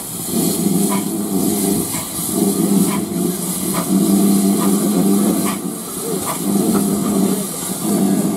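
Steam locomotive pulling its train away at low speed: slow, regular exhaust chuffs over the rumble of the coaches rolling past.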